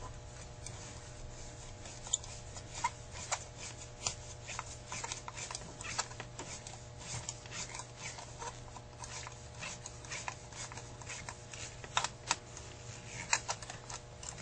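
Faint, irregular small clicks and scrapes of a long screwdriver working the idle mixture screws on a Carter AFB 9000 carburetor, over a steady low hum.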